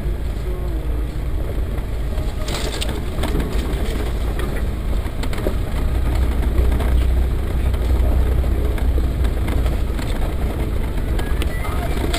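Land Rover Defender 110's engine running at low speed, heard inside the cabin as it drives along a rough grassy forest track, a steady low rumble. Short knocks and rattles break in over the bumps, with a cluster of them about two and a half seconds in.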